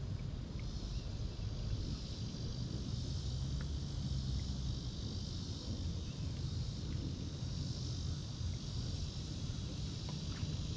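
Summer insects buzzing steadily and high-pitched, over a low rumble.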